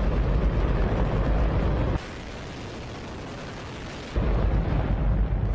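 Hydrogen-oxygen rocket engine firing: a loud, deep, continuous roar. In the middle it thins to a quieter rush for about two seconds, then the full rumble returns.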